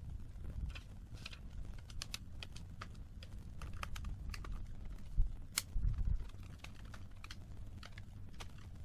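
Light, irregular clicks and taps of a small screwdriver and tiny screws against a laptop's plastic bottom case as the screws beneath the battery bay are taken out, with one sharper knock a little past halfway.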